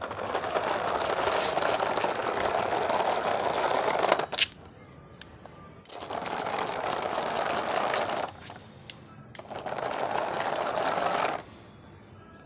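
Small DC gear motors of a homemade remote-control tractor running in three bursts of a few seconds each, with a sharp click between the first and second.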